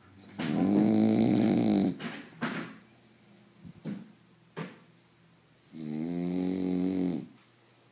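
French Bulldog snoring: two long snores of about a second and a half each, with a few short snorts between them. Snoring like this is typical of the breed's flat-faced, narrow airway.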